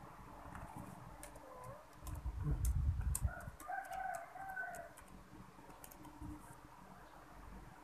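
Laptop keyboard keys clicking as a Wi-Fi password is typed, with a chicken calling in the background about three and a half seconds in. A dull, low bump or handling noise is the loudest sound, about two to three seconds in.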